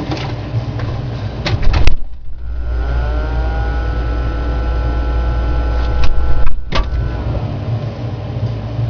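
A few clicks, then a motor starts about two seconds in: its hum rises in pitch, runs steadily with a deep rumble for about five seconds, and winds down, with a couple of sharp knocks shortly before it stops.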